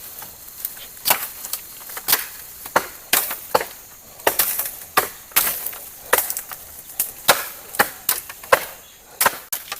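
Bamboo being chopped with a blade: sharp strikes, irregular, about two a second, starting about a second in.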